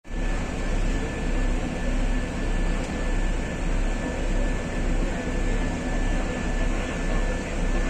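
Turboprop aircraft engines running at taxi power: a steady deep rumble with a high whine held on one pitch, and a loudness that pulses about twice a second.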